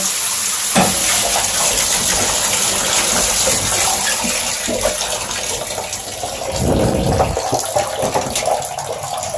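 Waterpik EcoFlow low-flow shower head spraying water, a steady hiss of falling spray, with a brief louder low splash about seven seconds in.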